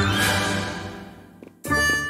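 Cartoon background music: a sudden crash at the start rings on and fades away over about a second and a half, then after a brief break the music starts again near the end.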